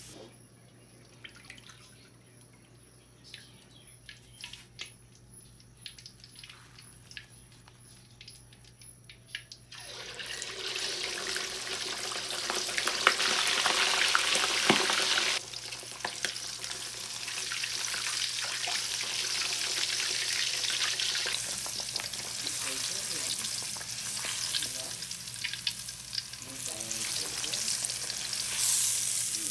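Pork jowl deep-frying in hot oil in a wok. For the first ten seconds there are only scattered pops and crackles; then a loud, steady sizzle starts suddenly, eases a little about five seconds later and keeps going.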